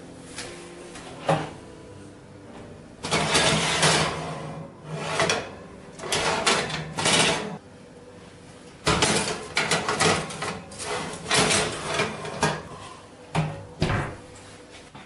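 Handling sounds at an electric oven: the door, metal wire rack and baking tray make a series of irregular scrapes and clatters, over a faint steady hum.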